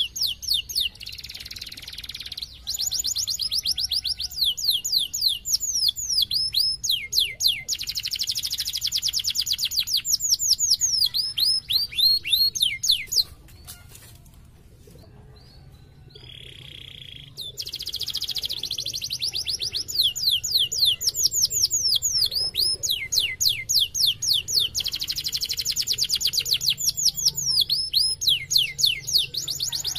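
Domestic canary singing long runs of fast, high trills and rolls of repeated notes. The song breaks off for a few seconds about halfway through, then starts again.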